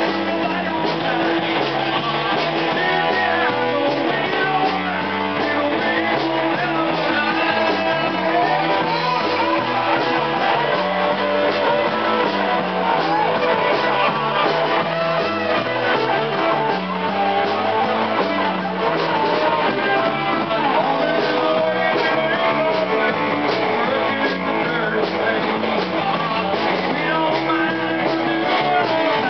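Live rock band playing loud amplified music: electric guitar, electric bass and drums keep a steady beat, with a lead line on top.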